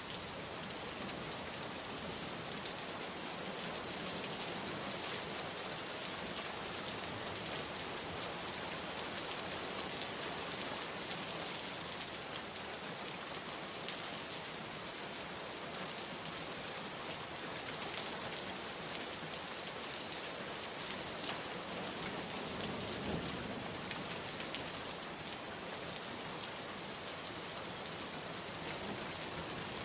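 Steady rain falling on a surface, an even hiss with faint drop ticks scattered through it.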